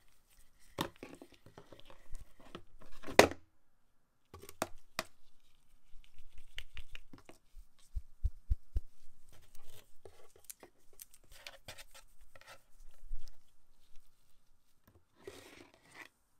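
Handling noise: gloved hands rustling, folding and stretching a nylon mesh headset pouch, with scattered soft taps and knocks against a cardboard box. A sharp rustle about three seconds in is the loudest, and another rustle comes near the end as a hand reaches into the box.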